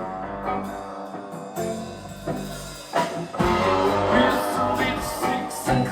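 Live rock band starting a song: a guitar plays single notes alone at first, then drums and bass come in about three and a half seconds in and the whole band plays the intro.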